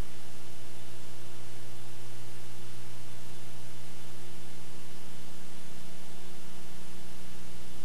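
Steady hiss with a constant electrical hum and no other sound. This is the noise floor of an old videotape transfer, with no game sound on it.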